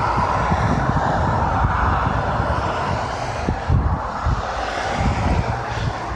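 Steady roar of expressway traffic below, tyres and engines, with irregular gusty wind rumbling on the microphone.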